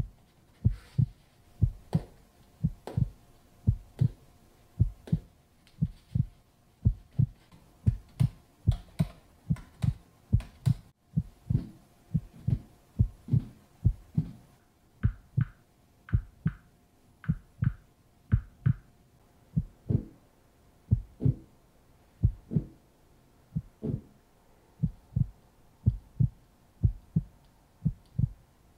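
A heartbeat, a deep lub-dub about once a second, steady throughout. Halfway through, a quick run of about seven short high beeps plays over it.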